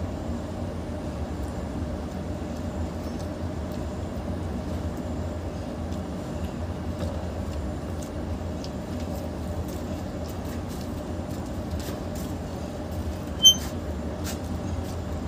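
Steady low rumble of background noise under faint wet chewing and mouth clicks from eating rice and curry by hand. A single brief high-pitched beep sounds sharply about 13 seconds in.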